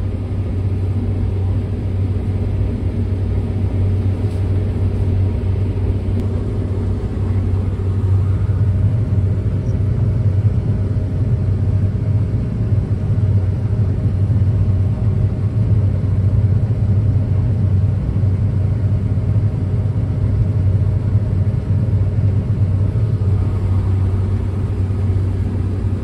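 Steady low drone of a John Deere combine's engine and threshing machinery running under harvesting load, heard from inside the cab.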